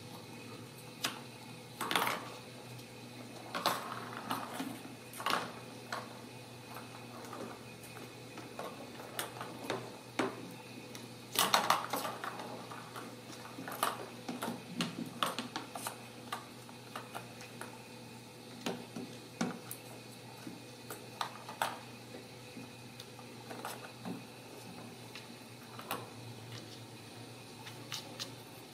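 Irregular clinks, taps and knocks of a small plastic ball and kittens' paws against a clear glass fishbowl. The loudest clatters come about two seconds in and again about twelve seconds in.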